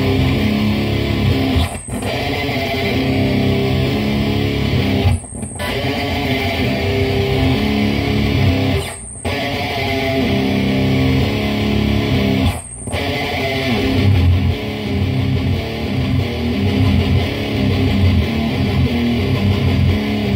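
Heavily distorted electric guitar through a Lone Wolf Audio Caveman pedal with its gain all the way up, the guitar tuned down to C standard and played through a Fender Deluxe Reverb amp: low, crushing riffing that breaks off briefly four times between phrases.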